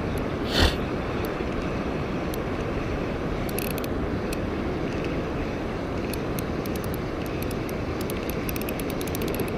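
Ryobi Smurf 1000 spinning reel being cranked slowly to retrieve a squid jig, with faint scattered ticks under a steady rushing background. A brief loud rush comes about half a second in.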